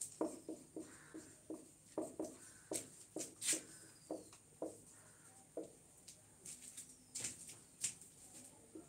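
Marker pen writing on a whiteboard: an irregular run of short taps and brief squeaky strokes as letters are written.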